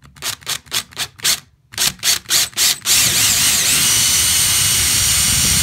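Cordless drill boring a pilot hole through sheetrock into a wood stud: the trigger is pulsed in short bursts, about four a second, to start the hole, then about three seconds in the drill runs steadily with a constant whine.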